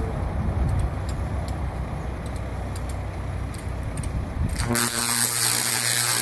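Low rumble of the idling bucket truck, then about three-quarters of the way in an electric arc on the overhead power line starts suddenly: a loud, harsh buzz with crackling hiss that holds steady on to the end. The arc is a short circuit on the energized line.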